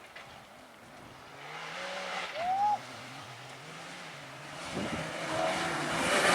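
A rally vehicle's engine is heard at a distance, its pitch rising and falling as it is driven, then getting steadily louder in the last two seconds as it approaches. A short, high squeal rises and falls about two and a half seconds in.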